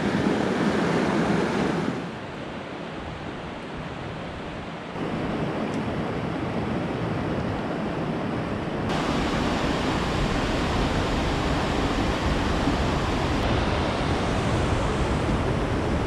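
Rushing water of a mountain stream, a steady hiss-like noise that drops and jumps abruptly in level three times.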